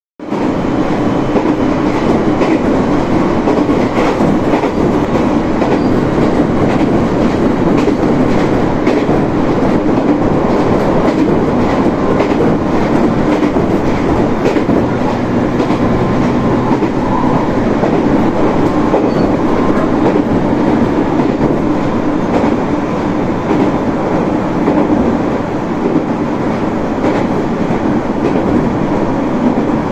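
A local train running at speed, heard from inside the carriage: a steady rumble of wheels on rail, with scattered clicks from the rail joints.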